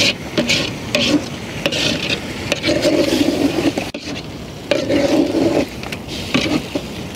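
A metal spoon stirs chicken and tomato pieces in a large aluminium pot, scraping against the pot's sides and bottom in a series of separate strokes.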